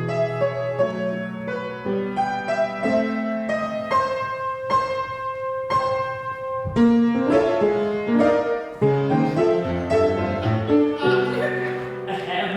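Piano playing an instrumental passage of struck chords and melody notes, with a heavy low chord about seven seconds in and busier playing after it.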